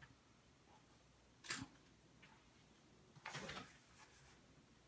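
Near silence: quiet room tone, broken by two faint, short rustling swishes, one about a second and a half in and a longer one about three and a half seconds in.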